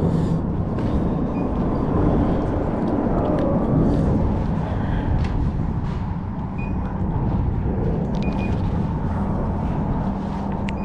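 Road traffic on the bridge overhead: a steady, continuous rumble of passing vehicles.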